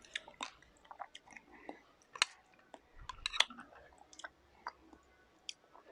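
Close-up chewing of soft food, with scattered sharp wet mouth clicks and smacks that come thicker about three seconds in.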